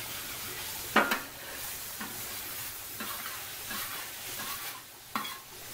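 Water sizzling and steaming on the hot Blue Rhino griddle while a spatula scrapes stuck-on egg off the seasoned flat top in several short strokes, the loudest about a second in. The steam is loosening the egg so it scrapes right up.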